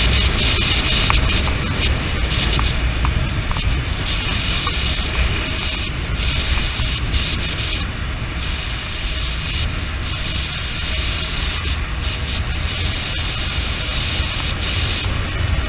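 Wind rushing over the microphone while riding a Honda CB motorcycle on the road, with the bike's engine running underneath; a steady, heavy rumble with a hiss that swells and fades.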